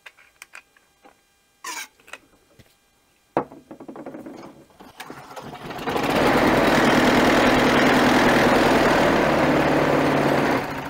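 A short hiss of aerosol spray, then a Briggs & Stratton Quantum single-cylinder lawn mower engine cranks, catches and builds to a loud, steady run for about four seconds before dropping away near the end. It runs only on the spray in the intake, the sign that the aftermarket primer base is not delivering fuel.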